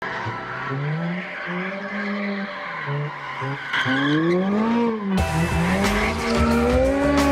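Lamborghini Huracán V10 revving up and down while the tyres squeal as the car slides through donuts. About five seconds in the engine comes in louder and fuller, its pitch rising and falling.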